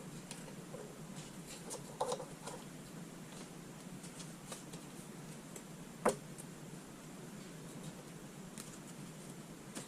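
Faint rustling and light clicks of trading cards and their packaging being handled, with a sharp click about six seconds in.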